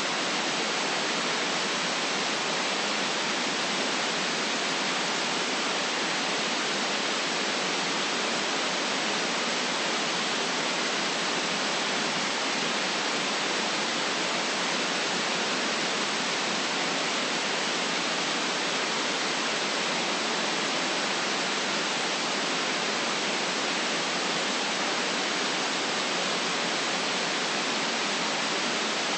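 Steady white noise: an even, unchanging hiss with no low rumble, made as a sleep and relaxation sound.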